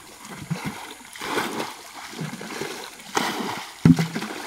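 Muddy water splashing as it is bailed out of a ditch with a bucket on long poles, with two louder splashes about a second and a half and three seconds in.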